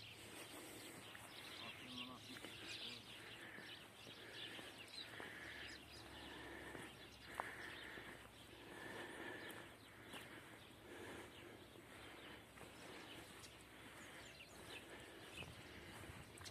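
Near silence: faint outdoor ambience, with one short click about seven seconds in.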